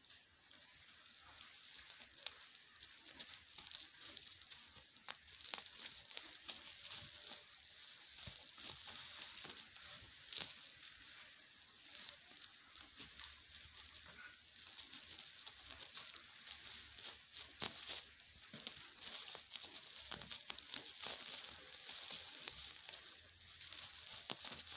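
Woven plastic sacks crinkling and rustling under the paws of two playing kittens, in irregular scratchy crackles.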